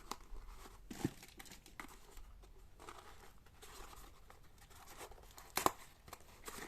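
Packaging being crinkled and torn by hand while unboxing a solenoid: scattered rustles, with one sharp snap near the end.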